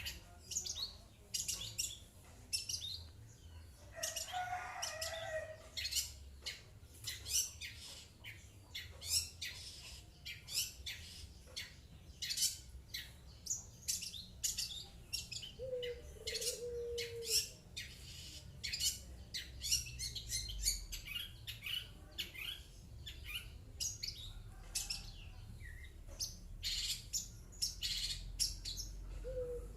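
Long-tailed shrike (cendet) singing a rapid, continuous run of sharp, short chattering notes. A lower drawn-out sound comes in three times among them.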